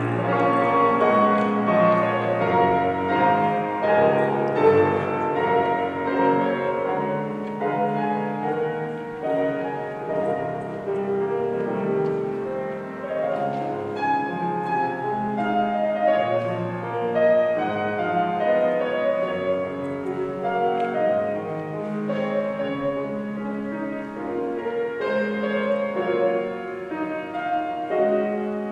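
Grand piano played solo, a continuous flow of notes and chords without a break.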